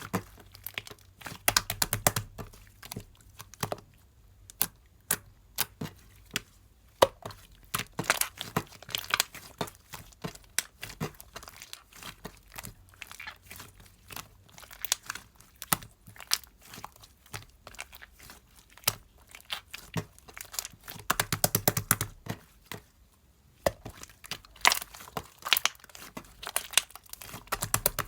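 Irregular sharp clicks and taps mixed with crinkling, crackling handling noises, coming in dense clusters about 2, 8 to 9, 21 to 22 and 25 to 27 seconds in, with quieter gaps between.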